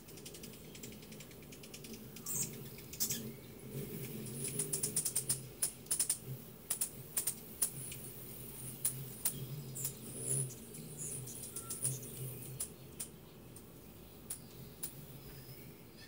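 Hummingbirds at the feeders giving rapid sharp chip notes, the calls bunched most thickly in the middle, over a low hum of hovering wingbeats.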